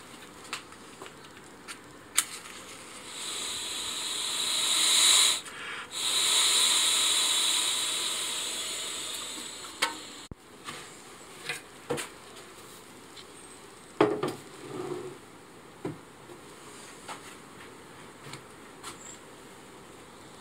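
Mouth-blown beekeeper's smoker hissing as air is blown through its tube into the freshly lit fuel. There are two long blows, one rising from about three seconds in and a second that fades out by about ten seconds, followed by a few light knocks and clicks of handling.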